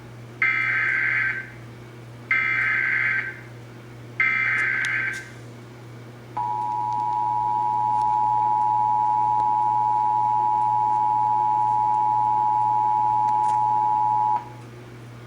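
Emergency Alert System broadcast tones: three short buzzing bursts of SAME digital header data, each about a second long with a second's gap between, then the steady two-tone EAS attention signal held for about eight seconds. This is the coded alert header and attention tone that open a required monthly test before the spoken message.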